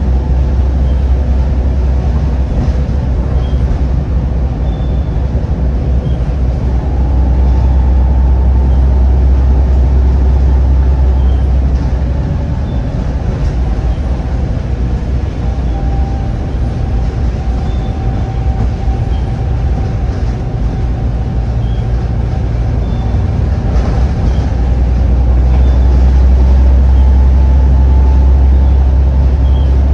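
Volvo B7TL double-decker bus's six-cylinder Volvo D7C diesel engine running under way: a steady deep drone that is stronger for the first ten seconds or so and again near the end, with a faint high whine through the middle.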